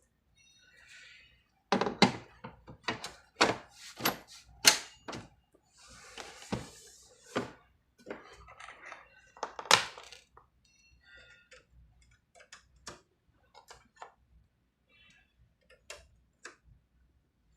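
Desktop computer case being handled and closed up after a RAM upgrade: a run of knocks and thunks, a short scrape, two more knocks, then lighter clicks.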